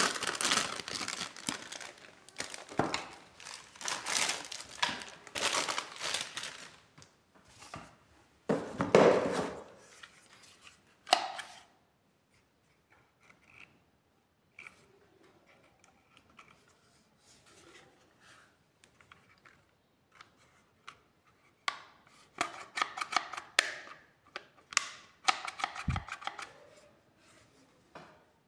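Clear plastic packaging crinkling and rustling in bursts as a spray gun is unwrapped by hand, with a quiet stretch in the middle and a low thud near the end.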